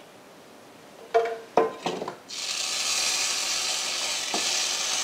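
A frying pan knocks and clinks against a glass bowl a few times, then is set back on the hot stovetop and sizzles steadily.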